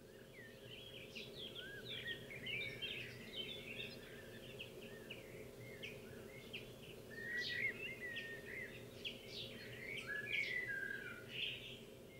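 Small birds chirping and singing in quick, overlapping phrases, over a faint steady low hum.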